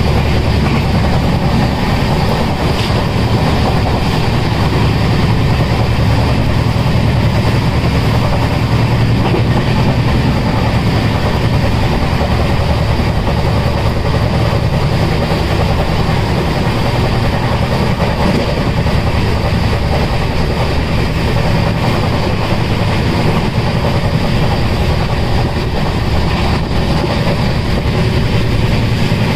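Passenger train running along the track, heard from inside the coach as a steady low rumble of wheels and running gear.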